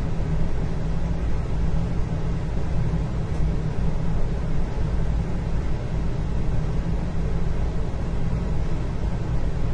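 Indoor ambience: a steady low rumble with a fainter even hiss above it, with no separate events standing out.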